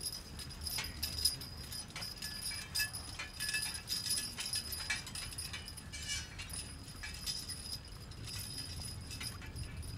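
Jingling and clinking of a draft-horse team's harness and chains as three horses walk pulling a horse-drawn riding implement: an uneven run of metallic clinks with a light ringing tone.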